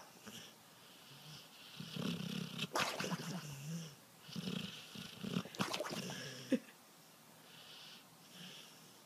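A dog snoring in its sleep: two long noisy snores a couple of seconds apart, then much quieter breathing near the end.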